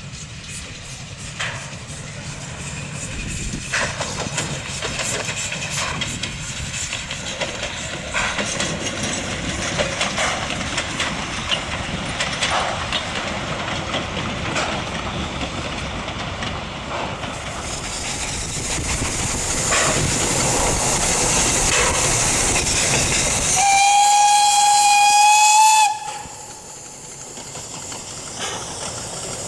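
Narrow-gauge Px29 steam locomotive running with its train, with scattered knocks and a high steam hiss that builds over the second half. Near the end it sounds one steady steam-whistle blast about two seconds long, the loudest sound. Whistle and hiss then cut off abruptly, leaving a softer hiss.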